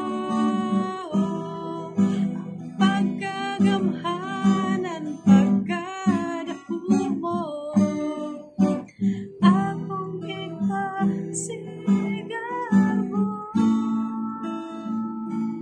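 A woman singing while strumming an acoustic guitar, her voice holding long notes over the chords.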